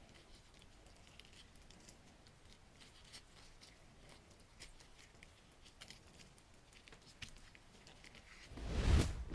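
Nitrile-gloved hands handling and pulling apart a raw chicken thigh: faint, scattered sticky clicks and crackles of wet skin and flesh. Near the end comes a brief, much louder rush of noise lasting under a second.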